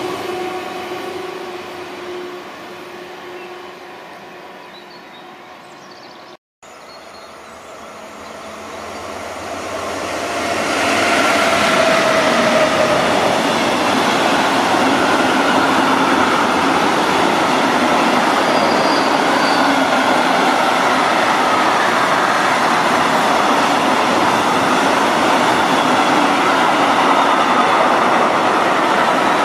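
A red regional electric multiple unit running away, its motor whine fading over the first few seconds. After a short break, an intermodal freight train carrying truck trailers comes up and runs past, its wheels on the rails loud and steady.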